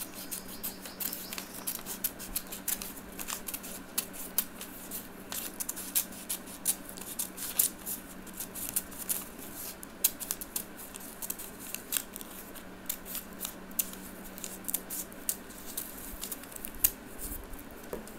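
Scissors snipping through paper in many quick, irregular cuts as a paper circle is cut into a spiral strip, over a steady low hum.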